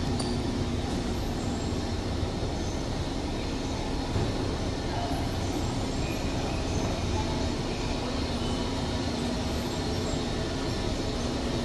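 Hanseon HS200(M) step-type escalator running while being ridden upward: a loud, steady mechanical rumble from the steps and drive with a constant hum.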